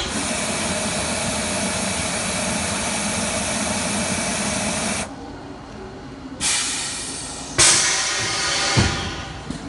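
Compressed air hissing from a horizontal splicer's pneumatic jaw mechanism as the clamping jaws work: one long hiss that cuts off about five seconds in, then two shorter bursts of air that start suddenly about a second apart near the end.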